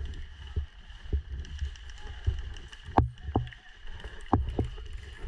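Footsteps: irregular low thumps, several in quick pairs, a few sharper knocks among them. A faint steady high hum sits behind them.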